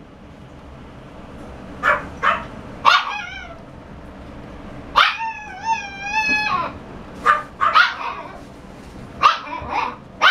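Shiba Inu puppy yapping in short, high barks, singly and in pairs, with a long wavering whine held for about a second and a half near the middle.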